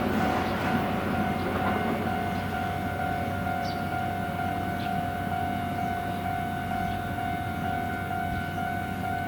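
Japanese level-crossing warning bell ringing in a steady repeating "kan-kan" tone, over the low rumble of a train passing the crossing that eases off slightly.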